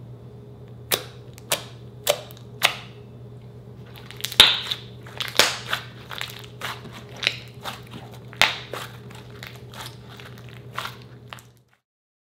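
Slime being pressed and squeezed by hand, giving sharp popping clicks as trapped air bursts. There are four spaced pops at first, then a quicker, irregular run of crackly pops, over a low steady hum.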